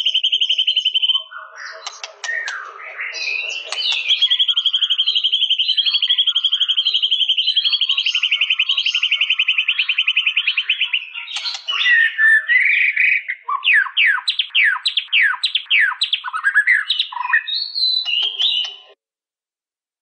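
White-rumped shama singing: long fast trills alternating with varied whistled phrases, then a run of quick falling notes, about three a second, near the end. The song cuts off abruptly about a second before the end.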